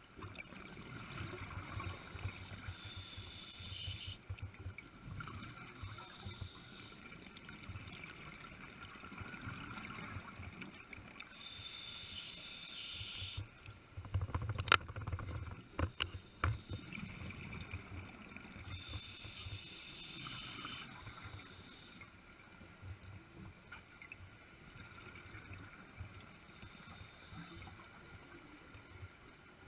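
Scuba diver's regulator breathing heard underwater: a hissing, bubbling burst every several seconds over a low steady rumble. A few sharp clicks come about halfway through.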